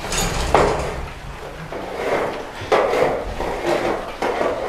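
Hand scrapers cleaning a pigsty floor: about five short scraping strokes with knocks, spaced irregularly over a few seconds, over a low rumble.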